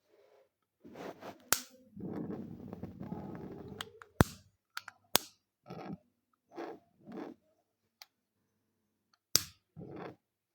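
Four sharp clicks, spaced irregularly, mixed with short bursts of rushing noise, the longest lasting about two seconds.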